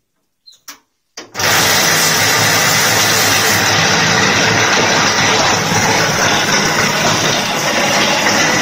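Automatic wall plastering machine switched on about a second in: its motor drives the mortar-filled trowel carriage up the mast, running loud and steady while it spreads render onto the wall.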